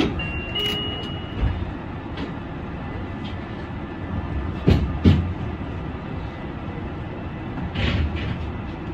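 Yui Rail monorail train running along its elevated guideway, heard from the front of the car: a steady low rumble of the running gear, with two sharp thumps in quick succession about five seconds in and a softer one near the end.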